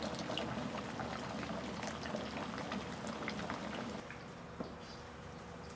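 A pot of milky pork-bone ramen broth at a hard boil, thick bubbling with many small pops. About four seconds in it gives way to a quieter hush, with a single knock of a knife on a cutting board.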